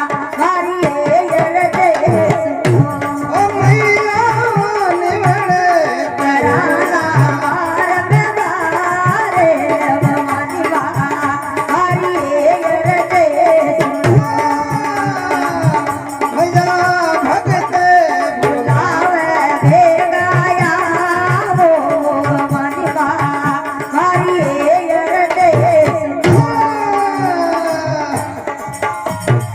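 Rajasthani devotional folk music: a wavering melody line over a steady, regular drum beat, with no words sung.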